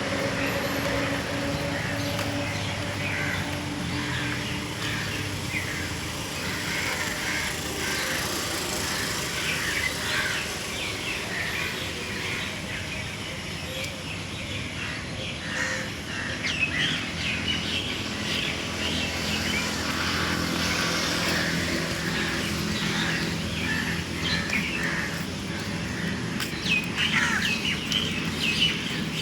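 Small birds chirping, many short calls throughout and busiest in the second half, over a steady low hum.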